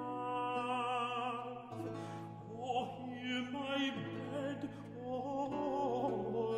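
A tenor singing a 17th-century English lute song with vibrato, accompanied by lute.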